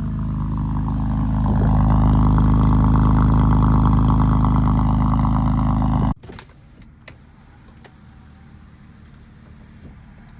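2005 BMW 330Ci ZHP's 3.0-litre inline-six running at a steady fast idle just after a cold start, getting a little louder about two seconds in. It cuts off suddenly about six seconds in, leaving faint background noise with a few clicks.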